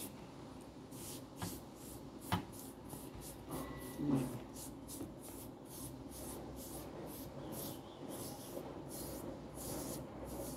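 Hands rubbing and massaging a gritty baking-soda-and-lemon scrub paste into the skin, making short swishing strokes about three a second. A single sharp click comes a little over two seconds in.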